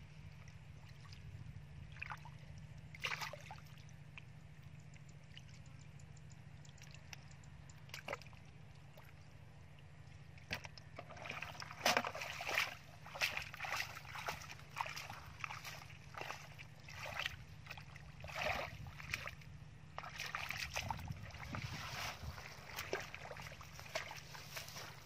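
Hands groping and splashing in shallow muddy water, with only a few scattered splashes at first, then from about ten seconds in a busy run of short, irregular sloshes and splashes.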